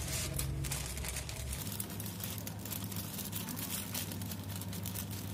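Grey plastic courier mailer crinkling and rustling in irregular crackles as hands pull and tear at its sealed edge to open it.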